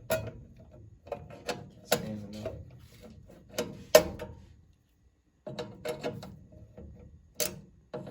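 Handling noise from a sheet-metal furnace cabinet: an irregular series of sharp clicks, taps and knocks, with a gap of about a second of silence near the middle.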